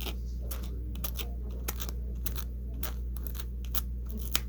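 Seam ripper point scraping and plucking through a velcro strip: a run of small, irregular scratchy clicks as it picks out the lint and dirt clogging the velcro, which keep it from sticking.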